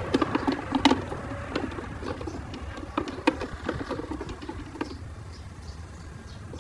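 Small irregular clicks and taps of hands working on small parts during a repair, dense for about five seconds and then thinning out.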